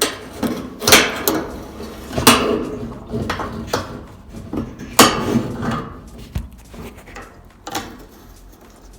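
Metal clanking and clicking of a washing machine suspension rod and its hanger being worked into place on the machine, a string of sharp knocks with the loudest about one, two and five seconds in.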